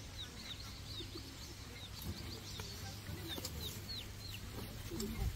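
Many short, high chirping calls, each falling quickly in pitch, several a second in an irregular stream, over a low steady rumble.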